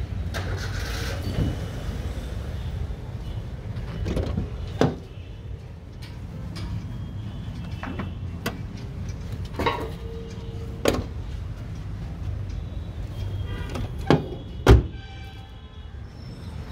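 Workshop and yard noise: a steady low rumble with about six sharp knocks and clanks scattered through it, the loudest near the end.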